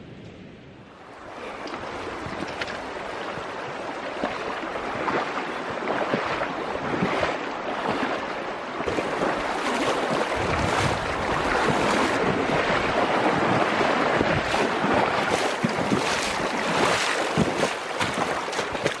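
Fast river current rushing and splashing around a wader's boots as someone wades into the river. It swells in from about a second in, with frequent sharp splashes.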